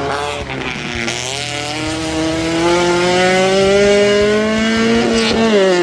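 Toyota Celica rally car's engine at high revs, accelerating away with its pitch climbing steadily for several seconds, then falling sharply near the end.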